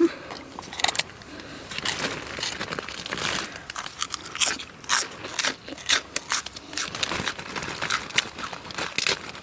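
A dog crunching and chewing a hard treat: a run of uneven, sharp crunches.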